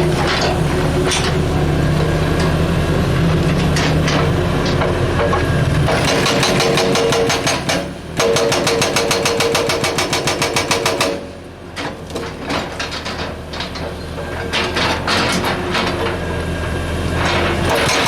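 330 excavator's hydraulic rock breaker pounding rock in a fast, even rapid-fire rhythm over the excavator's engine. The blows start about a third of the way in and stop about two thirds through, leaving the engine quieter with scattered knocks, before the noise builds again near the end.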